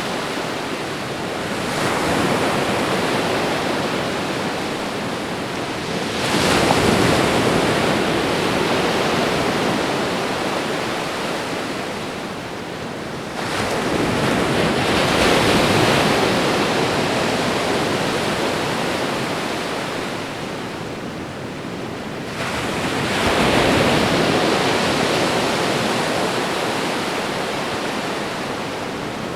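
Ocean waves breaking and washing up a shore. The rush of surf swells and fades several times, once every few seconds.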